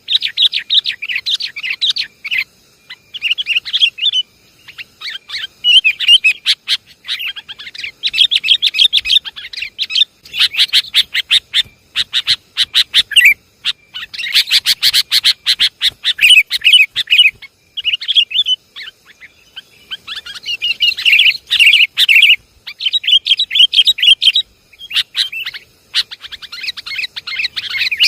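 Sooty-headed bulbuls (kutilang) chattering, as played on a bird-lure recording: burst after burst of fast, bubbly notes with only short pauses between them.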